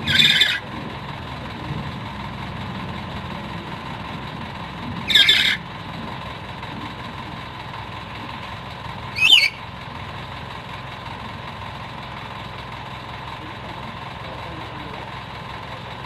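Black-capped lory giving three short, harsh screeches: one at the start, one about five seconds in and a shorter, pitch-bending one about nine seconds in. A steady hum runs underneath.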